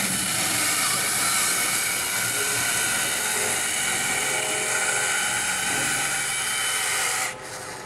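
Motor of a powered caulking gun whining steadily as it pushes out urethane adhesive to lay a bead for a windshield, cutting off suddenly near the end.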